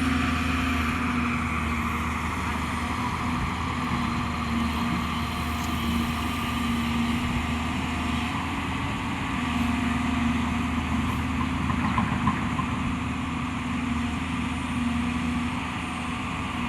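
Excavator's diesel engine running steadily, a constant low hum with a steady pitched drone.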